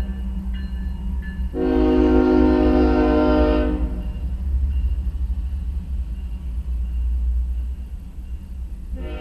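Norfolk Southern diesel freight train rolling over a grade crossing with a steady low rumble. The locomotive air horn sounds one long, steady chord from about one and a half to nearly four seconds in.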